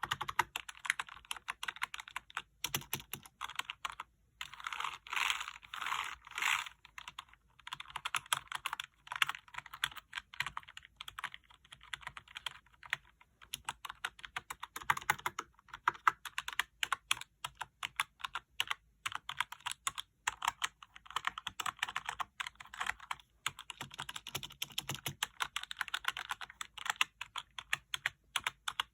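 Typing on an NPET K10 membrane gaming keyboard: a rapid, continuous run of key presses with a few short pauses.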